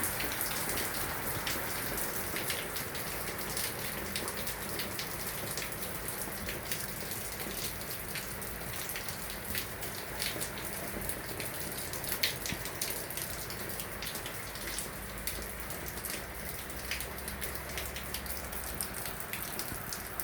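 Steady rain falling, an even hiss with many individual drops ticking sharply against a surface.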